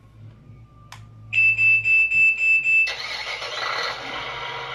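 Huina 1592 remote-control toy excavator powering up: a click, then a quick run of about six high beeps from its built-in speaker, followed by a steady noisy engine sound effect.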